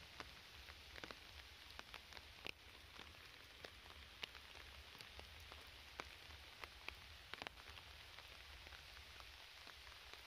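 Faint steady rain falling, with scattered single drops ticking sharply at irregular moments.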